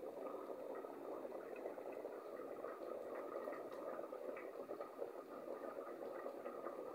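Steady soft crackling rustle of cat fur brushing against the phone's microphone as it is held pressed into the fur.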